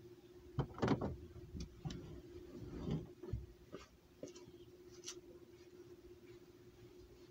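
A scatter of clicks and knocks inside a vehicle cabin, loudest about a second in and dying away after about five seconds, over a faint steady hum.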